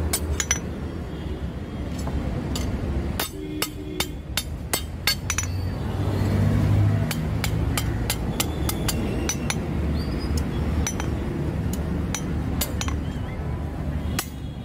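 Hand hammer striking a leaf-spring steel billhook blade on an anvil, shaping its curved hook: sharp, ringing metal strikes in irregular runs with short pauses between them.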